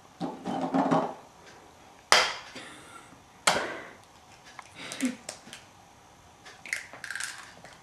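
An egg being knocked against the rim of a food processor bowl to crack it: two hard knocks about a second and a half apart, with lighter clicks and clatter around them.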